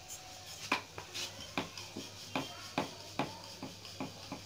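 Wooden rolling pin knocking lightly as a potato-stuffed paratha is rolled out: a run of about ten short, sharp knocks, two or three a second.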